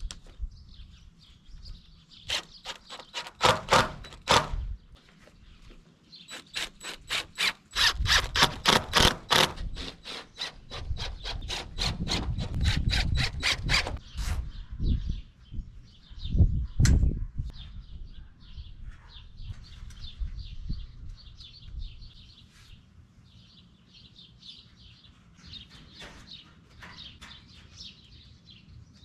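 Two long runs of rapid, even clicking from fastening a tarp down onto a chicken tractor, the first in the opening seconds and the second from about six seconds in. Small birds chirp through the second half.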